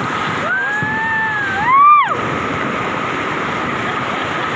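River rapids rushing steadily as whitewater pours over rocks. One long high-pitched call holds, rises and then drops off sharply about two seconds in.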